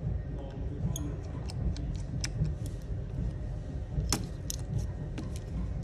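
Light metallic clicks and ticks of a precision screwdriver bit on tiny screws and the metal brackets inside an iPhone 11, scattered irregularly, the loudest about four seconds in. A steady low rumble lies underneath.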